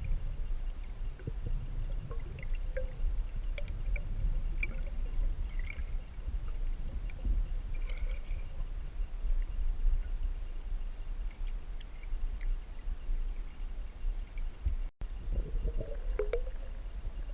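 Water splashing, gurgling and trickling from a kayak or tube on the river, over a steady low rumble, with scattered small splashes and drips. The sound drops out for a moment near the end.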